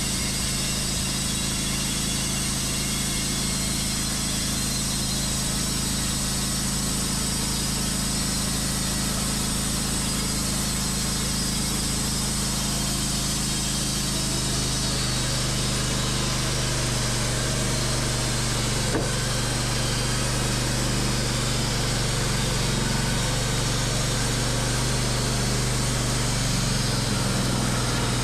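Wood-Mizer LT15 band sawmill cutting through a hard maple log: the mill's motor running steadily under load while the blade hisses through the wood. The motor's note shifts about halfway through the cut.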